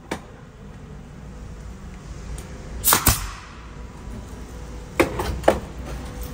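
A nail gun firing brads into a wooden edge strip on cabinetry. There are sharp single shots: one right at the start, a loud pair about three seconds in, and two more around five seconds.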